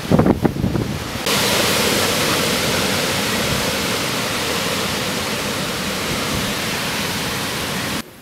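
Hurricane wind buffeting the microphone in gusts for about a second, then a steady, even hiss of heavy storm rain and wind that cuts off abruptly near the end.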